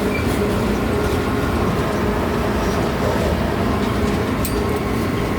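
Park ride train running steadily with a continuous rumble and a faint steady hum, heard from aboard.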